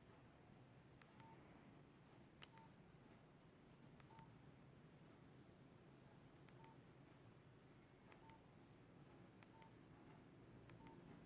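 Keypad tones of a Nokia 5130 XpressMusic as keys are pressed: seven short, faint beeps at irregular intervals, each just after a light key click.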